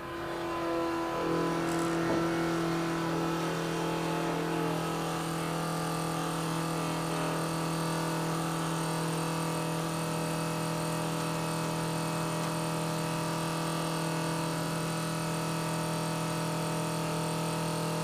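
Electric fuel pump running with a steady whine, pressurizing the fuel lines to a freshly fitted carburetor so they can be checked for leaks; its pitch steps up about a second in, then holds steady.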